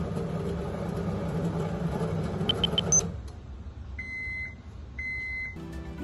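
Microwave oven running with a steady hum that stops about three seconds in, just after three quick high beeps that mark the end of the cooking cycle. Two longer, lower beeps follow about a second apart. Background music comes in near the end.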